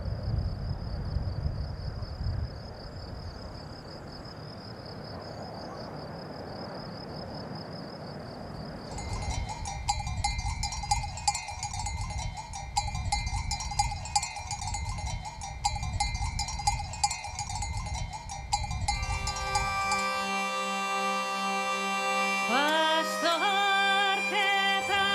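Insects trilling over wind rumble on the microphone; from about nine seconds in, bells on a grazing flock of sheep clank irregularly. Near the end, music with a steady drone comes in and a melody starts over it.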